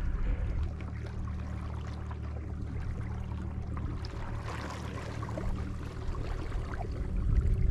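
Electric trolling motor on a kayak running with a steady low hum, with faint water noise around the hull.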